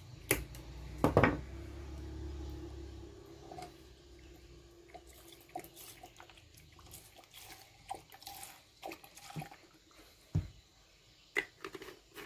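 Liquid poured from a plastic bottle into a cut-down plastic bottle holding scraps of old battery metal, splashing and dripping as it covers the metal to dissolve it for homemade solder flux. Two sharp knocks near the start as the bottles are handled, then scattered small drips.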